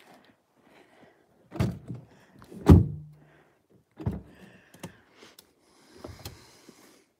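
A snow-covered car door being cleared and opened: several dull thunks with scraping of snow between them, the loudest thunk about three seconds in.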